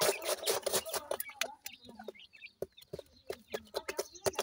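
Black francolin chicks and hen pecking and scratching at food on dry soil: many sharp pecking taps, with a burst of scratching in the first second, soft chick peeps and low clucking from the hen.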